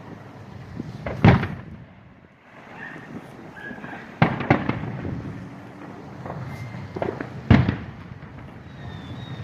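Aerial fireworks bursting: three loud booms about three seconds apart, with a smaller crack just before the last one.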